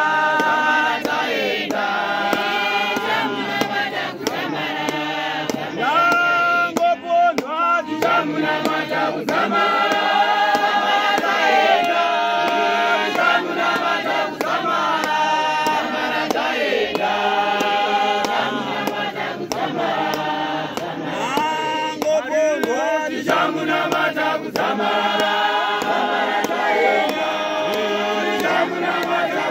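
A group of men singing together without instruments, their voices continuous throughout.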